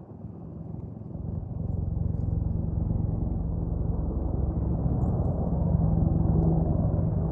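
Boeing AH-64E Apache Guardian helicopters approaching at low level: the rotor and engine noise swells quickly over the first two seconds, then holds loud and steady with a low drone.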